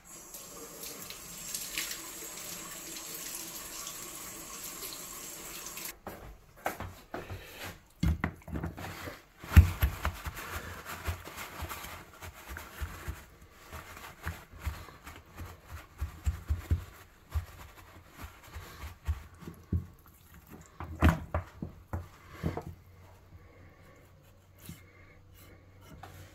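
A water tap running steadily for about six seconds, then cut off sharply. After that, a whole raw rabbit carcass is handled on a plastic cutting board: irregular thumps, taps and rubbing as it is set down and patted dry with paper towel, with the heaviest thuds a few seconds after the water stops.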